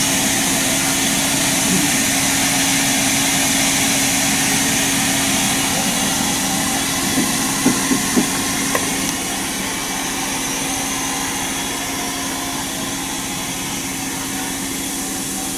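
Standing steam locomotive simmering: a steady hiss with a low, even hum, and a few faint squeaks about halfway. It grows a little quieter after about nine seconds.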